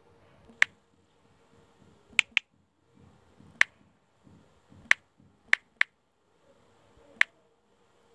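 Sharp key-press clicks from an Android phone's on-screen keyboard as a word is typed: eight clicks at uneven intervals, some in quick pairs.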